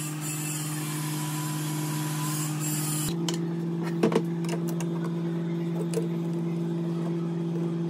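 Light metallic clicks and knocks as a steel barrel is handled and slid back into an FX PCP air rifle's receiver, over a steady low hum.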